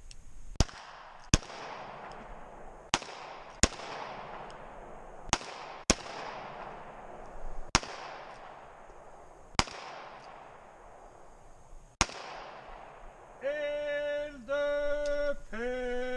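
Handgun shots fired one at a time, about nine at uneven intervals, each crack followed by a long rolling echo. Near the end come three short pitched blasts.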